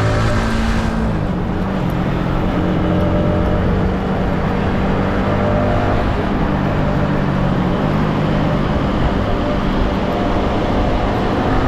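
Yamaha MT-15's stock single-cylinder engine running under way, heard from onboard, holding fairly steady revs; near the end the revs begin to climb.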